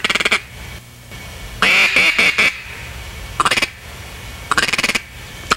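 Ducks quacking in four short runs, the longest about halfway through, with quiet gaps between.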